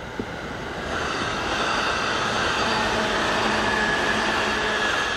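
JR East E531 series electric train running past: steady wheel-on-rail rumble that grows louder about a second in as the cars come alongside.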